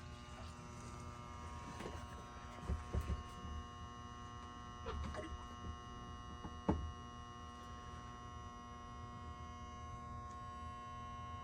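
Steady electrical machine hum made of several even tones, with a few light knocks and clinks, one sharper than the rest about two-thirds of the way through.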